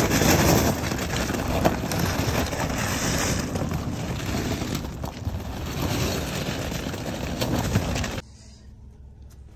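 Toyota sedan driving slowly over loose rocks and gravel, its tyres crunching and stones crackling under the wheels. The sound cuts off suddenly about eight seconds in.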